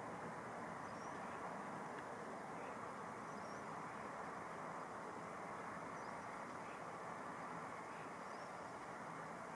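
Steady outdoor background hiss, with faint, short, high bird chirps recurring about every second or so.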